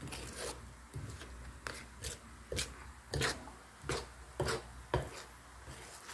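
Metal spoon stirring and scraping a thick, wet mix of grated sweet corn and glutinous rice in a bowl: about eight uneven scrapes and clinks.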